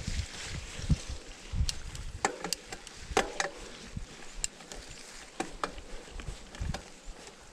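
Mountain bike being ridden over a dirt trail: low buffeting thumps in the first second or two, then a run of sharp clicks and knocks from the bike over the rough ground.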